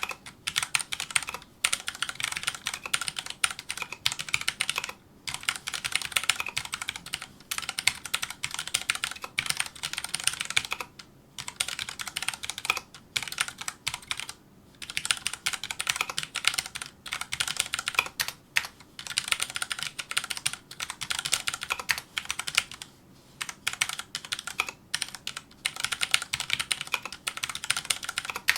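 Fast continuous touch-typing on a Filco Majestouch2 mechanical keyboard with Cherry MX Brown switches: a dense patter of key clacks, broken by brief pauses now and then.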